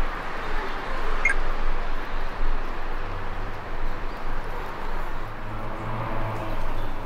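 Outdoor city street ambience with steady distant traffic noise. A short high chirp comes about a second in, and a low steady hum joins about three seconds in.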